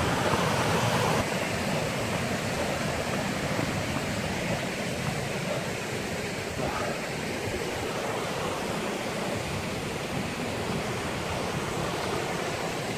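Mountain stream rushing over rocks in small cascades, a steady, even rush of water.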